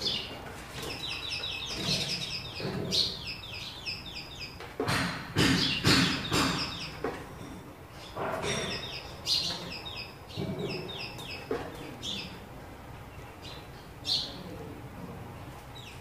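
House sparrows chirping in quick runs of short, repeated notes, with a few louder sharp thuds or scuffles about five to six seconds in.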